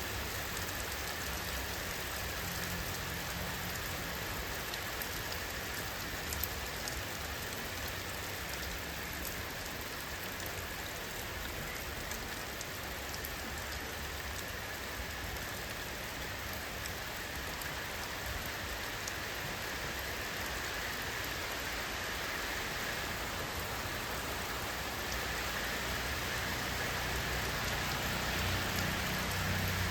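Steady rain falling, an even hiss of drops on surfaces. A low rumble grows louder near the end.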